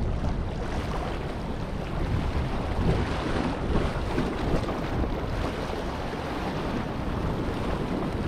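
Small waves washing and splashing over a rock ledge, with wind buffeting the microphone in a steady low rumble.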